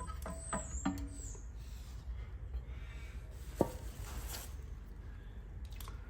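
Light clicks and short squeaks of a screwdriver working at a new alloy wheel, with one sharp click about three and a half seconds in.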